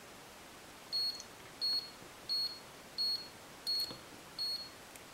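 Six short, high key-press beeps from a Siglent SHS1062 handheld oscilloscope, about 0.7 s apart. Each one confirms a press of the arrow key that steps the meter's manual voltage range up.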